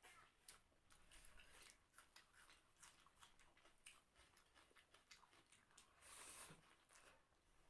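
Faint close-up chewing and mouth sounds of people eating rice and egg curry, with many small wet clicks and smacks, and a brief louder rustling noise about six seconds in.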